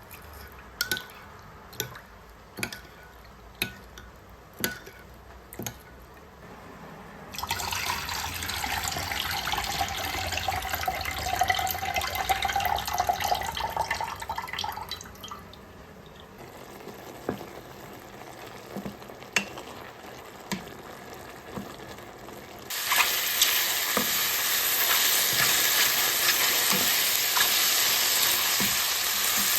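Kitchen cooking sounds: a run of sharp knocks about one a second, then water running for about eight seconds with a ringing tone, and from about three-quarters of the way in a loud, steady sizzle of food frying in a hot pan.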